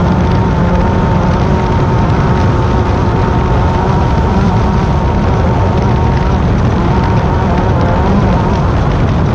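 Class 10 off-road race car's engine running hard at fairly steady revs, under a heavy, continuous rumble.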